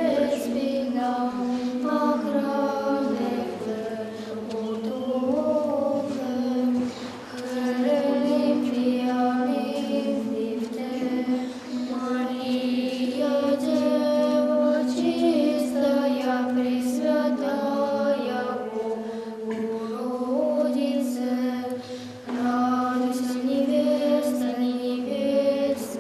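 Orthodox church chant: voices singing a slow melody over one steady held drone note, in the Byzantine manner with a sustained ison.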